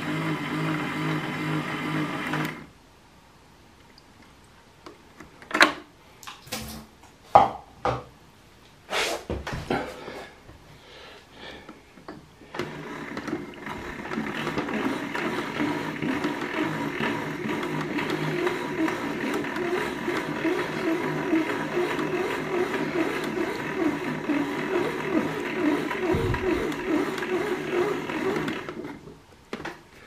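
Small battery motor of a Casdon Hoover Electron 1100 toy washing machine turning the drum with a steady hum, which stops about two and a half seconds in. A few sharp clicks and knocks follow, then the motor runs again from about twelve seconds until near the end, with a rougher, wavering sound.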